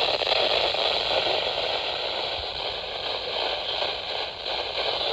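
Steady radio static hiss from a weather radio receiver on a weak NOAA Weather Radio signal, with no bass and no voice audible through it.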